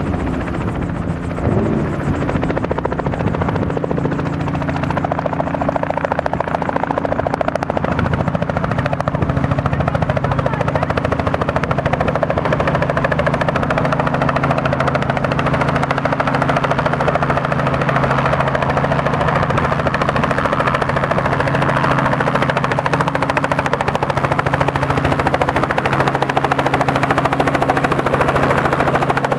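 Robinson R44 Raven I helicopter's rotor and six-cylinder piston engine running steadily as it approaches low, hovers and settles onto its skids, growing slightly louder as it comes closer.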